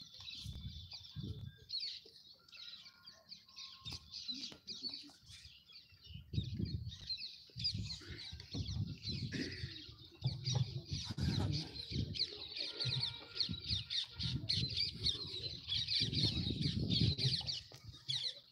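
Small birds chirping continuously and densely overhead, with faint low muffled rumbles underneath.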